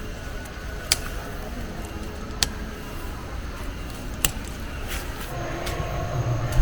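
Three sharp knocks, about a second and a half apart, over a steady low rumble; about five seconds in, a low droning hum sets in and grows louder.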